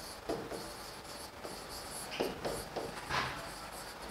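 Hand-writing on a classroom board: a few short, faint, irregular scratchy strokes as words are written out.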